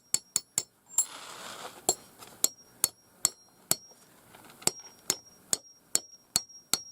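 Hammer driving large nails into the ground as stakes: sharp metallic strikes, about two or three a second, each with a short ringing ping, in runs of several blows with brief pauses between.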